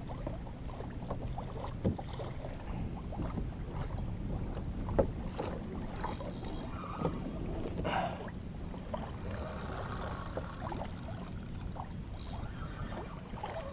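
Water lapping against a fishing kayak's hull, with a few knocks from gear on the hull.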